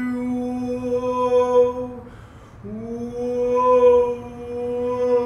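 A woman's voice singing long, held wordless notes in an improvised ambient style: one steady note that breaks off about two seconds in, then after a short gap a new note that slides up slightly into place and is held.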